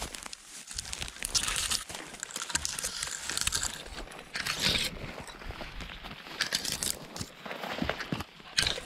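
Footsteps pushing through dense heather, gorse and long grass: irregular rustling and crunching as stems brush and snap against the walker and the camera.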